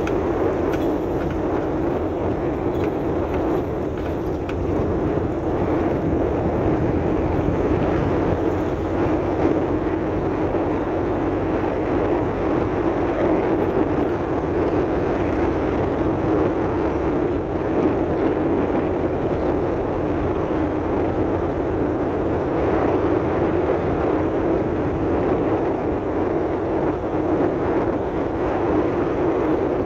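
Car driving steadily along an unpaved dirt road, with engine and tyre noise running on without a break.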